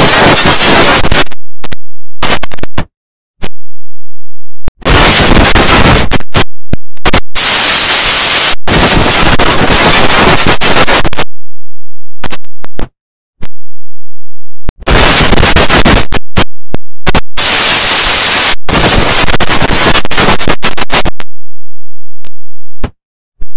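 Digitally distorted, clipped audio from a 'G-Major' video edit: harsh, very loud noise with music buried in it. It cuts off abruptly into short silences several times, about three seconds in, around thirteen seconds in and near the end.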